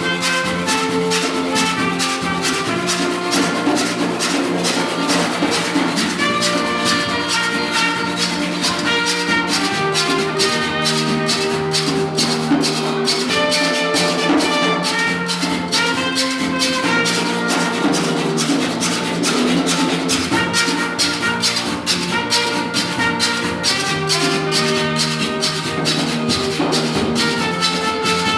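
Live rake 'n' scrape music: a carpenter's hand saw scraped in a fast, steady rhythm under held melody notes.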